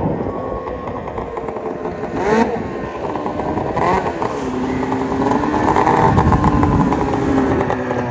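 700 snowmobile engine revving hard with the track spinning at high speed, getting louder in the second half.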